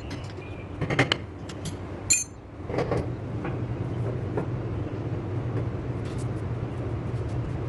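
Metal tools and parts clinking and knocking during brake pad work, two sharp ringing clinks in the first couple of seconds and lighter clicks after, over a steady low hum.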